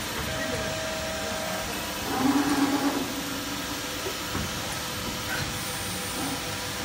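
CNC press brake back gauge moving on its servo axis drives: a whine that starts and stops over a steady machine hiss. A louder whir lasts about a second, about two seconds in.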